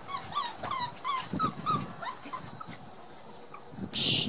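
Month-old Border Collie puppies whimpering and yipping in short, high-pitched cries, many in quick succession over the first two seconds, then fewer. Near the end comes a brief, loud burst of hiss-like noise, the loudest sound here.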